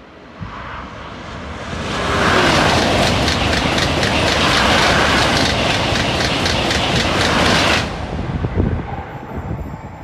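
High-speed train passing at speed: a rushing noise that builds over about two seconds, then a quick, even run of clicks as the wheelsets go by. It cuts off sharply about eight seconds in as the end of the train passes, leaving a fading rumble.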